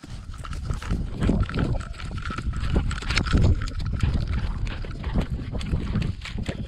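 Thumps and clicking rattles of a GoPro strapped to a running kelpie, its strides jolting the camera mount, in a rapid, uneven stream.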